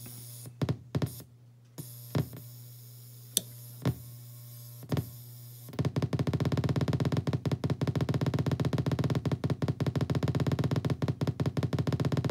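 Circuit-bent noise box making electronic noise. At first there are sparse clicks and pops over a steady low hum and a hiss. About six seconds in it breaks into a loud, rapid stuttering buzz as a hand is waved over its light sensors.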